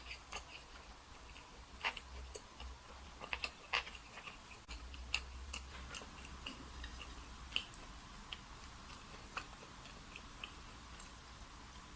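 Close-miked eating: quiet chewing with scattered small clicks and smacks from the mouth at irregular intervals.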